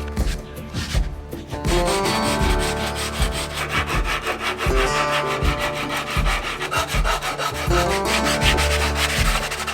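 Sandpaper rubbing on walnut in quick, repeated strokes, over background music.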